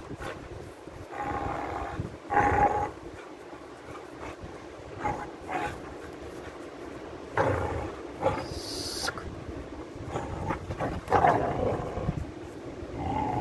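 Pit bull puppy growling in repeated short bursts while tugging on a cloth hanging from a rope. The loudest growl comes about two and a half seconds in.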